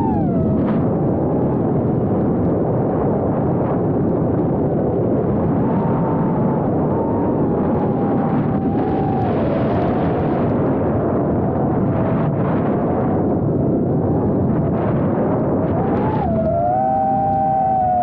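Emax BabyHawk II FPV quadcopter's motors and propellers recorded by its onboard camera: a buzzing whine that keeps rising and falling with the throttle, under heavy wind rush on the microphone. Near the end the pitch jumps up and then holds steady.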